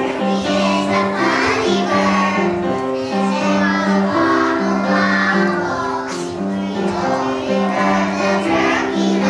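A group of young children singing a song together in unison, with held notes and no pauses.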